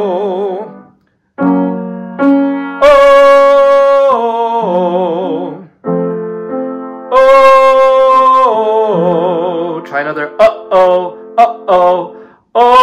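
A man sings a glottal vocal exercise over piano chords. Twice a loud held note starts abruptly, then steps down with vibrato, and near the end comes a run of short, clipped notes. Each hard onset brings the vocal folds fully together.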